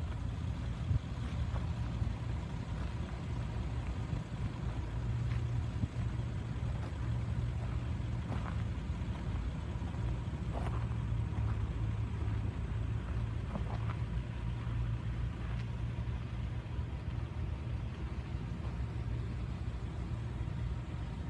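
1999 Dodge Ram 2500 service truck's engine idling steadily, a low even hum.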